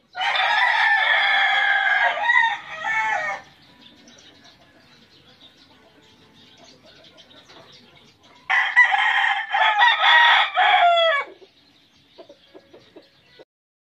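Gamecock rooster crowing twice: two long crows of about three seconds each, the second starting about eight and a half seconds in, each trailing off in falling notes.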